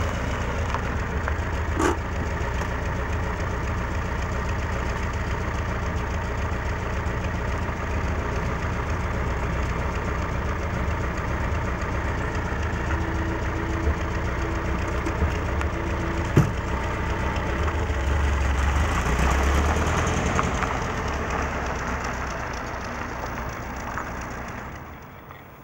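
Air-cooled flat-four engine of a Volkswagen Type 3 Notchback idling steadily, with a car door shutting about 16 seconds in. The engine then grows louder as the car pulls away, and fades out near the end.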